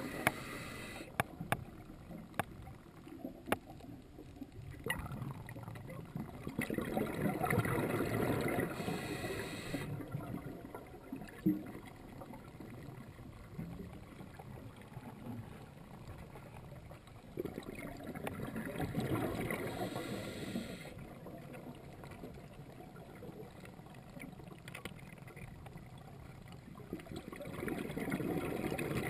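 Scuba diver breathing through a regulator underwater: rumbling bursts of exhaled bubbles about every ten seconds, with a brief hiss of inhaled air after the first two. Several sharp clicks in the first few seconds.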